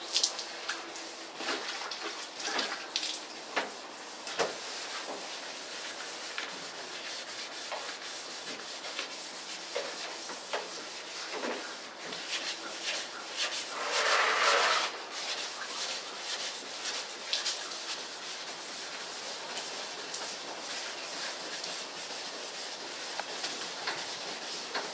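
Sanding block with wet sandpaper being rubbed by hand over a car's body panel in steady scratchy strokes, louder for a second or so about halfway through.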